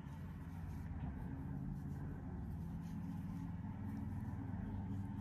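A low, steady hum runs under faint soft ticks.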